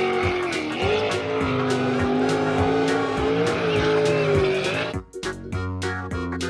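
Jet sprint boat engine running hard at high revs, its pitch dipping and climbing as it races. About five seconds in it cuts off abruptly to cheerful background music.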